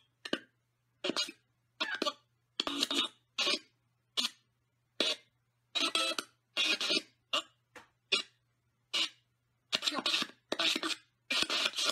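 JoesBox ghost-box app playing through the tablet's speaker: a rapid string of short chopped voice fragments, about one and a half a second, each cut off abruptly into silence.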